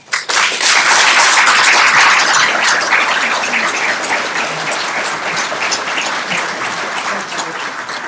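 Audience applauding, breaking out at once, fullest in the first couple of seconds and then slowly dying away.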